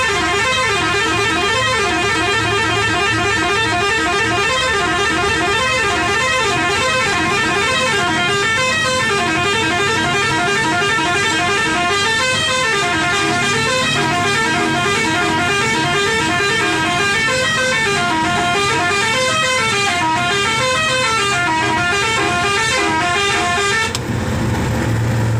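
Truck's musical horn playing a fast tune of short notes stepping up and down in a repeating pattern, loud and unbroken. It cuts off about a second before the end, leaving a low engine hum.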